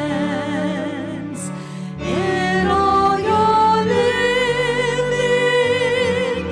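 A slow hymn sung with vibrato over sustained low accompaniment, with a short break between phrases about two seconds in.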